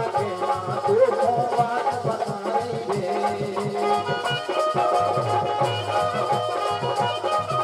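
Indian folk music: a harmonium playing a sustained melody over a steady percussion beat.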